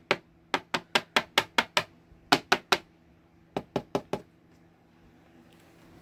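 A vacuum cleaner filter being tapped against a hard surface to knock the fine dust out of it. The sharp knocks come in quick runs of several and stop about four seconds in.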